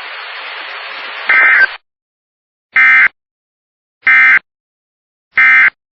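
Emergency Alert System broadcast closing. A steady radio hiss with a brief buzz near its end cuts off just under two seconds in. Three short, shrill digital data bursts follow, about a second and a third apart: the SAME end-of-message tones that close an EAS alert.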